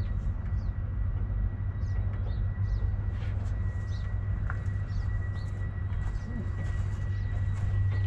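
Electric fuel pump on a Dodge Ram pickup humming steadily with the key on, while the tank is thought to be completely empty. Small birds chirp again and again in the background.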